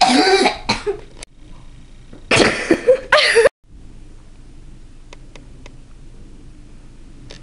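A boy's loud, cough-like bursts of laughter in two fits, the second cut off suddenly about three and a half seconds in. After that, only quiet room sound with a few faint clicks.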